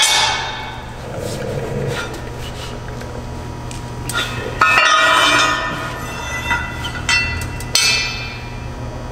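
Metal mounting brackets and bolts clinking and clanking as they are handled and fitted to a machine table leg, with two louder ringing clanks, one about halfway through and one near the end.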